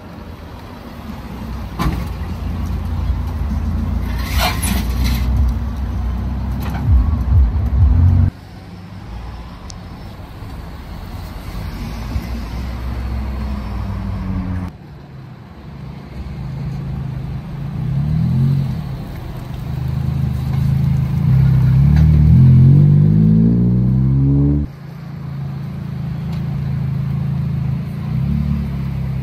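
Modified cars pulling away across a parking lot, among them a lowered Nissan pickup and a red Honda Civic hatchback, their engines and exhausts giving a low rumble. About twenty seconds in, one engine revs up, its note rising until it cuts off sharply.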